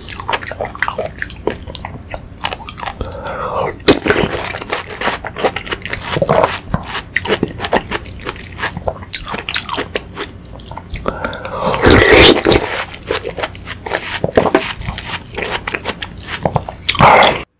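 Close-miked eating: a spoon scooping watermelon fruit punch (hwachae) and chewing of watermelon and soft fruit, with many small wet clicks and smacks. There are a few louder noisy moments, the loudest about twelve seconds in.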